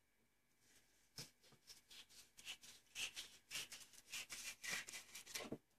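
Kitchen knife scraping and cutting along a raw fish fillet on a plastic cutting board as the skin is taken off: a quick, irregular run of short scraping strokes starting about a second in.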